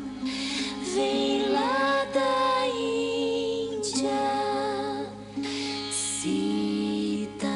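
Sitar playing a slow melody: a few plucked strokes, with notes bent upward in smooth glides over steadily ringing drone and sympathetic strings.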